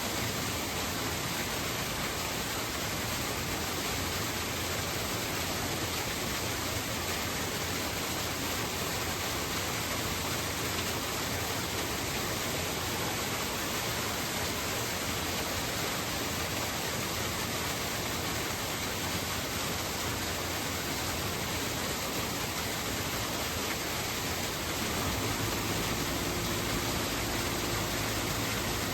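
Great Langdale Beck, a Lake District river, rushing in a steady, unbroken wash of flowing water. A faint low hum joins near the end.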